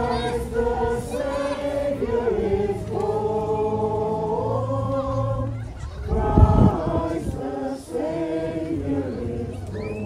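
A group of voices singing a Christmas carol in held, changing notes. A brief low rumble cuts in about six seconds in.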